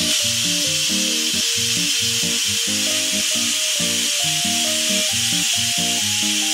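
Steady loud hiss of steam jetting from the pressure-release valve of a Mueller electric pressure cooker as it vents its pressure, with background music over it.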